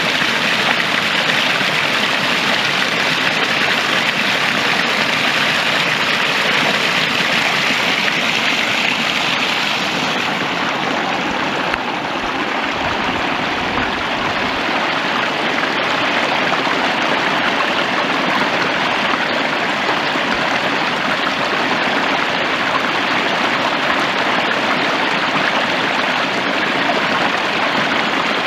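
Running stream: a steady rush of flowing water. The hiss grows a little softer about ten seconds in.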